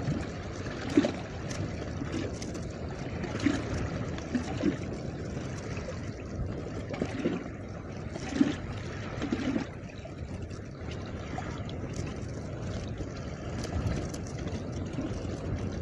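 Choppy lake water lapping and slapping against the hull of a bass boat, with a steady rush of wind. A few louder slaps come in the first ten seconds.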